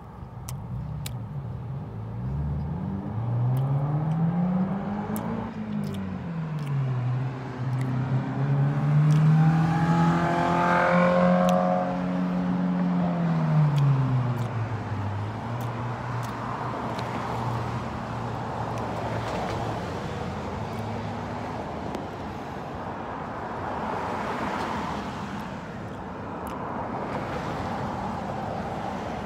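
Road traffic driving past on a multi-lane street. One vehicle's engine grows louder toward the middle, then drops in pitch as it goes by, leaving a steady rush of tyre and traffic noise.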